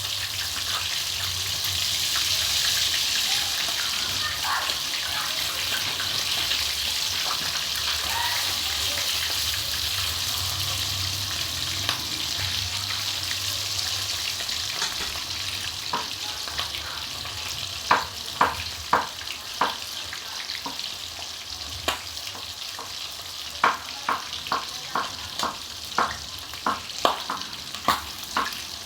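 Breaded chicken frying in hot oil, a steady sizzle. From a little over halfway through, a run of sharp clicks and taps comes in over it, at times several a second.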